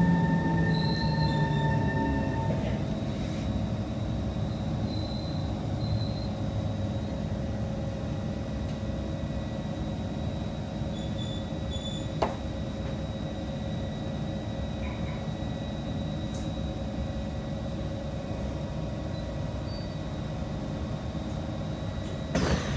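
Inside a Kawasaki C151 metro train car as it comes to a stop: a whine from the train fades over the first few seconds. The stationary train then gives off a steady hum, with a single sharp click partway through. Near the end the doors start to slide open.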